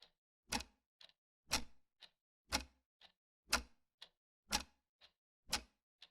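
Grandfather clock ticking steadily: a tick about every half second, alternating stronger and weaker strokes in a tick-tock rhythm.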